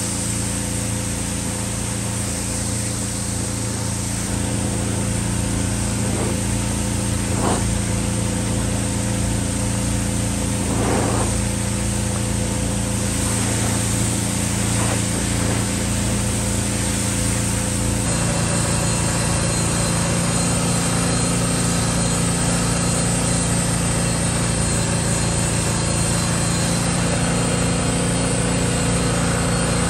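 Pressure washer running steadily, its spray hissing against rubber floor mats. About 18 seconds in the sound switches abruptly to a different steady hum, with a cordless drill spinning a scrub brush on carpet.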